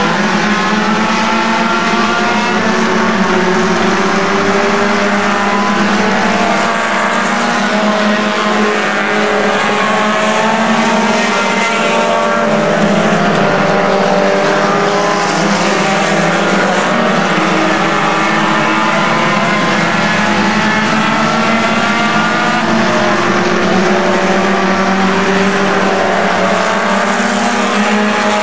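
A pack of front-wheel-drive Stinger-class race cars at racing speed, several engines heard at once. They rev up and fall off in overlapping sweeps as the cars go down the straights and through the turns, making a steady, dense drone.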